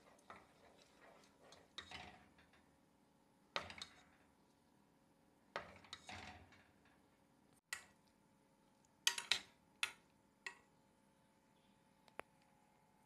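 Wooden spoon stirring thick béchamel sauce in a metal saucepan, knocking and scraping against the pan in a string of short, irregular knocks, the loudest cluster about nine seconds in.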